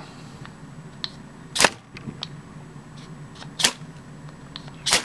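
Ferrocerium rod struck down the 90-degree spine of a Morakniv Bushcraft Black carbon-steel knife: three short, sharp scrapes, the first about a second and a half in, with a few fainter scrapes and ticks between.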